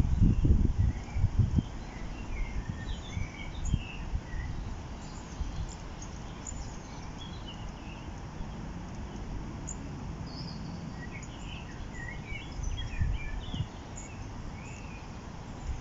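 Small birds chirping and singing over a steady outdoor background hiss, with low thumps in the first second or so and again near the end.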